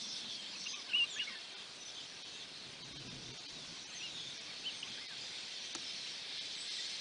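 Steady high-pitched insect buzz from the dry bush, with a few short bird chirps about a second in and again near five seconds.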